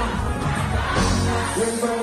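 Live Afrobeats concert music over a PA: a band track with a heavy bass line and singing over it. The bass drops out briefly near the end.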